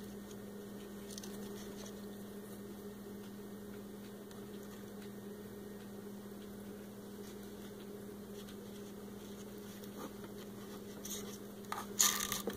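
Steady low electrical hum under faint handling noise, with a few sharp clicks and rustles near the end as small plastic toy pieces are handled.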